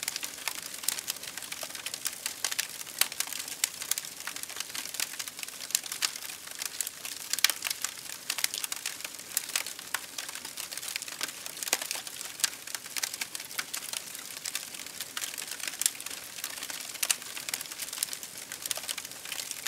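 Campfire of burning firewood crackling, with many quick, irregular sharp pops over a steady hiss.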